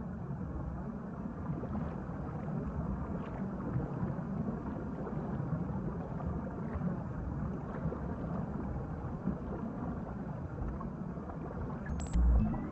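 Steady, low, rumbling whoosh of a film soundtrack's ambient sound bed, like water or wind noise, with a deep thump near the end.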